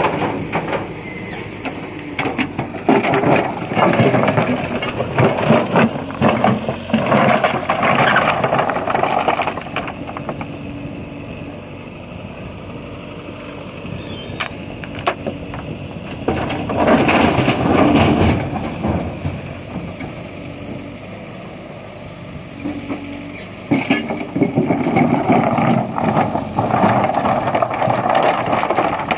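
JCB backhoe loader's diesel engine working and revving up under load in three loud stretches, easing back between them. Knocks and clatter come with the loud stretches, as stone is scooped and dumped.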